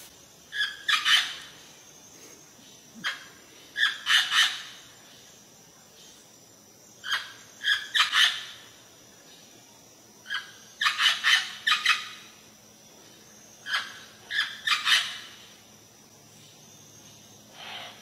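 An Amazon parrot giving short, harsh squawks in quick clusters of two to five. The clusters repeat about every three seconds, and one fainter call comes near the end.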